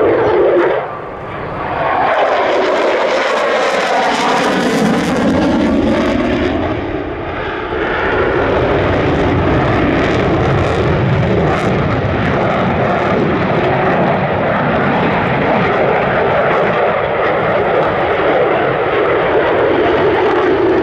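F-16 fighter jet engine roaring as the jet flies its display, with a sweeping rise and fall in pitch as it passes in the first few seconds, brief dips near 1 s and 7 s, then a steady loud roar.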